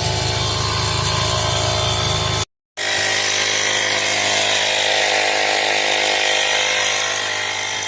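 A power tool running steadily, with a low pulsing rumble; it cuts off abruptly about two and a half seconds in, and a steady run with a stronger high hiss and a low hum follows.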